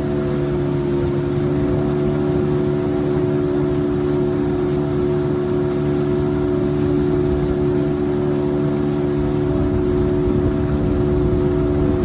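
Motorboat engine running at a steady speed: a constant drone with several fixed tones over a rough low rumble.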